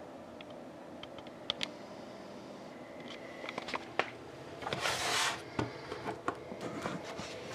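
Handling noises from the card box's tin and packaging: scattered sharp clicks and taps, with one brief rustling scrape about five seconds in, over a steady low room hum.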